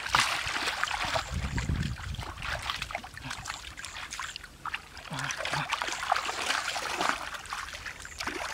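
Hands sloshing and splashing in shallow muddy water, scooping through the mud while feeling for catfish, in irregular bursts.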